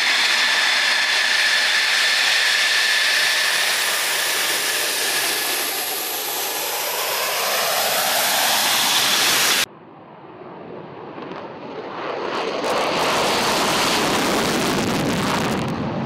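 F-16 Fighting Falcon's jet engine at taxi power, a loud high-pitched whine as the fighter rolls past. After a sudden cut, another F-16 takes off on afterburner: a roar that swells, is loudest a few seconds before the end, then starts to fade.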